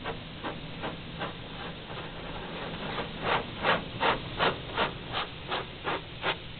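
High-pressure water spray from a touchless automatic car wash beating on the car, heard from inside the cabin as regular bursts of spray just under three a second over a low steady hum. The bursts grow much louder about halfway through.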